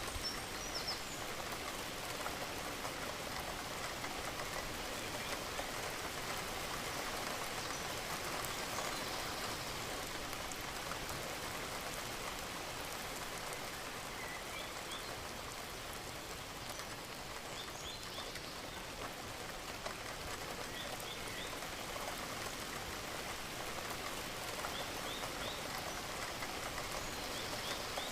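Steady rain falling and pattering on surfaces, with a few short, faint high chirps here and there.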